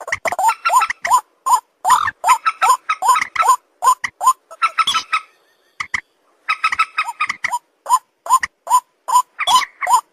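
An animal's short squeaky calls, repeated two to four times a second, with a pause of about a second midway.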